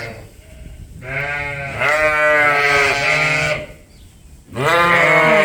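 Sheep bleating loudly: two long, wavering bleats, the second starting near the end.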